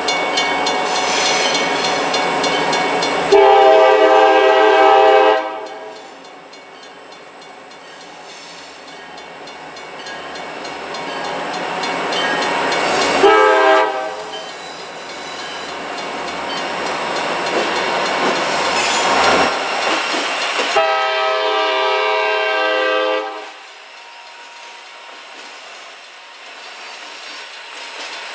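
Two CSX EMD GP40-2 diesel locomotives, each with a two-stroke V16, approach at low speed with their engines running louder as they near. The lead unit sounds its multi-tone air horn three times: a blast of about two seconds, a short toot some ten seconds later, and a longer blast of over two seconds. Near the end, flatcars loaded with welded rail roll past.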